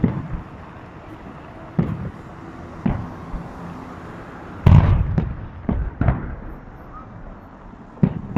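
Aerial fireworks salute: shells bursting overhead with a string of sharp booms, about one every second or so, the loudest and fullest about halfway through.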